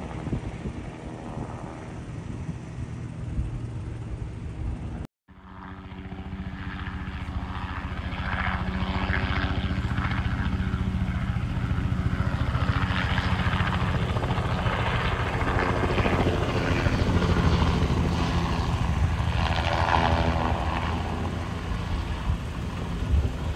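Crop-spraying helicopter flying low nearby, its engine and rotor running steadily. The sound drops out for a moment about five seconds in, then comes back louder and builds as the helicopter passes close.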